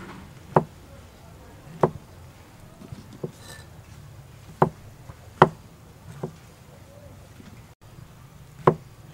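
Steel cleaver chopping oyster mushrooms on a round wooden chopping block: about seven sharp knocks of the blade into the wood, at uneven gaps of roughly one to two seconds.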